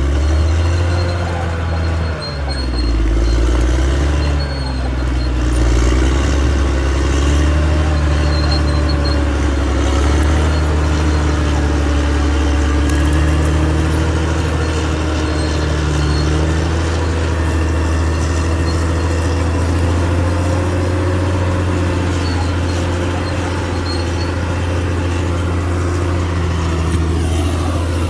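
The diesel engine of a CAT D6R XL bulldozer working, a steady deep drone whose pitch drifts up and down slightly as the load changes.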